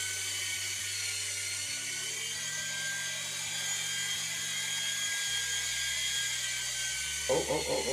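Small electric motors and spinning rotor blades of a toy 3.5-channel RC helicopter in hovering flight, a steady high whine. Its low hum steps in pitch about two seconds in and again past the middle.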